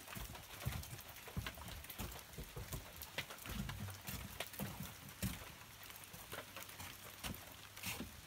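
Irregular light taps and low thumps, scattered and quiet, with no steady sound beneath them.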